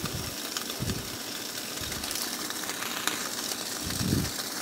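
Steady hiss of an egg cooking in hot orange juice inside a foil-wrapped orange peel on a gas burner flame, with a few soft low thumps, the loudest about four seconds in.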